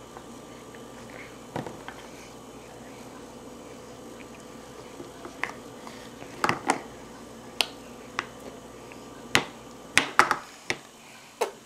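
About ten sharp, irregular taps and clicks, most in the second half: a plastic toddler fork and small hands knocking on a plastic high-chair tray, over a faint steady hum.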